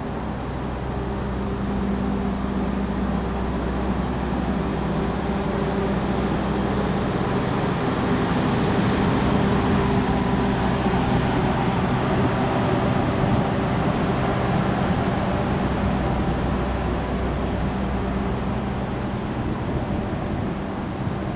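Argo Sindoro passenger train moving out along the platform: a steady rumble of rolling wheels with the low hum of the power car's diesel generator. It is loudest around the middle as the power car goes by, then eases off as the last cars move away.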